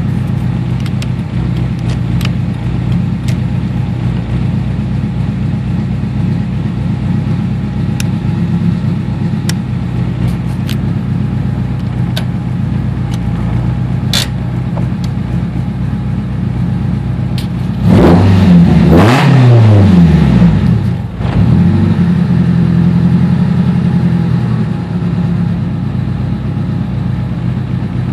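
Honda Civic engine idling steadily, heard from inside the cabin, revved once about two-thirds of the way through: the pitch climbs and falls back over about three seconds before it settles to idle again.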